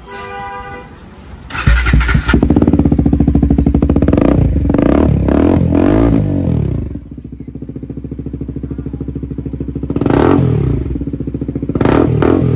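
Bajaj Pulsar NS400's single-cylinder engine through a Two Brothers slip-on exhaust with its dB killer removed. The starter whines briefly and the engine catches about a second and a half in. It is blipped several times, settles to idle about seven seconds in, and is blipped twice more near the end.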